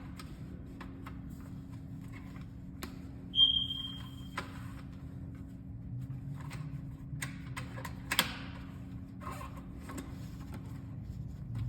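Steady low hum under scattered clicks and light knocks, with one short, high electronic beep about three and a half seconds in.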